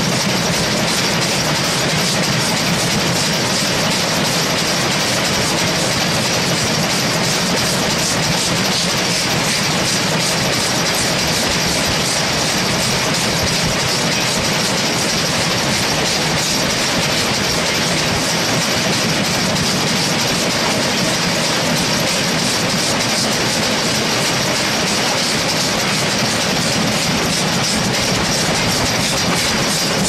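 Steam locomotive running along the line, steam hissing steadily from low beside its running gear over the rapid clatter of its wheels on the rails.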